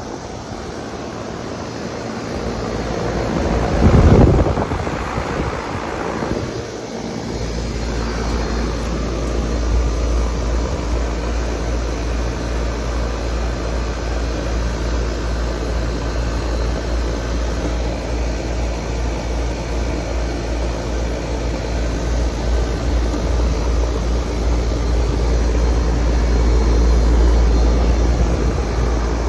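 A steady low mechanical rumble, with a louder whooshing swell about four seconds in before the rumble settles in.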